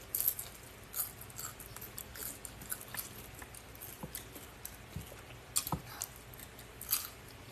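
Close-miked chewing of Korean spicy noodles: irregular wet smacks and small clicks of the mouth as the food is chewed.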